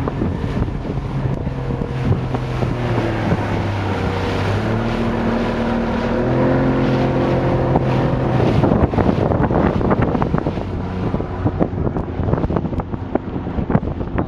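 Speedboat engine running, its pitch stepping up and down a few times, with wind buffeting the microphone throughout.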